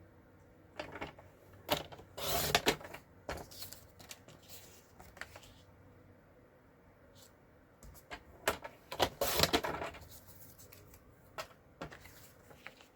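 Paper trimmer cutting cardstock strips: the blade slid along the track in two main strokes, one about two seconds in and one about eight and a half seconds in, with small clicks and paper handling between.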